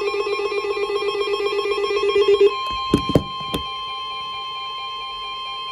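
Emergency Alert System tones: a rapidly warbling electronic data burst, then, about two and a half seconds in, the steady two-tone EAS attention signal, with a few short clicks soon after it starts.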